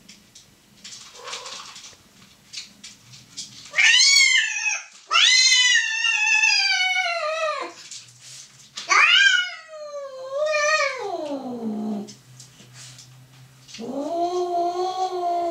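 Cat yowling during mating: a short wail, then a long drawn-out one, then a wail that slides down in pitch, with a lower, shorter yowl near the end.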